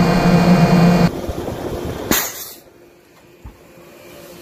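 Steady low hum of a ship's machinery over water rushing along the hull, cut off abruptly about a second in. A short loud hiss follows about two seconds in, then quieter sea noise.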